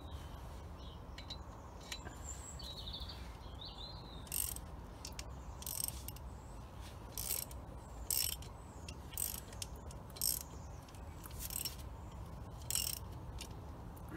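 Ratchet wrench clicking in short bursts, roughly once a second from about four seconds in, as it is worked back and forth on the forcing screw of a three-jaw puller. The puller is clamped on the air compressor's pulley, being tightened to draw the pulley off its shaft.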